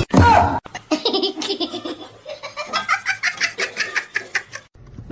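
A person laughing hard: a short loud voice sound at the start, then a long run of rapid laughter in quick pulses that stops abruptly near the end.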